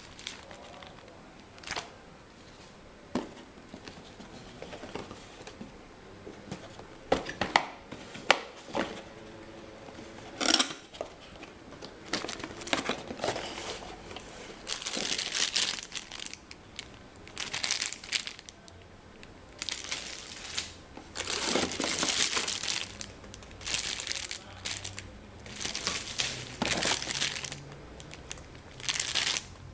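Packaging being handled and unwrapped: a few scattered clicks and knocks at first, then repeated crinkling and rustling of wrapping from about twelve seconds in.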